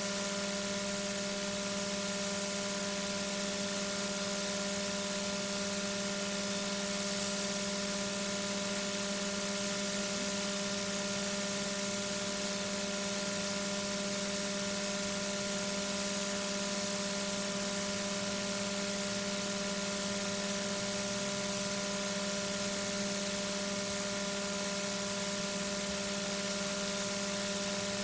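Steady electrical hum made of several fixed tones, over a constant hiss, unchanging throughout: background noise of the nest-box webcam's audio feed.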